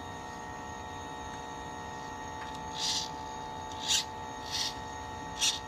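Steady electrical hum made of several fixed tones, broken by four short hisses in the second half, about three, four, four and a half and five and a half seconds in.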